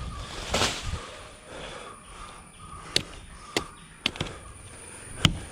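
A handful of sharp, isolated knocks and clicks, irregularly spaced, after a brief scraping rustle near the start, as a climber makes his way up a tree.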